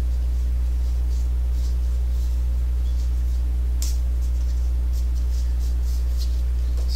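Steady low hum with a few faint, brief rustles.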